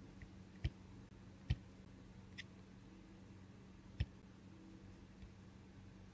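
A few faint clicks of a computer mouse, unevenly spaced about a second apart, clicking through presentation slides, over a faint steady low hum.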